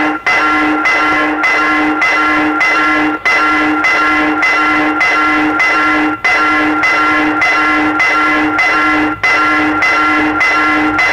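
Level-crossing warning bell ringing steadily, a little over two strokes a second, with a brief break about every three seconds: the crossing is signalling an approaching train.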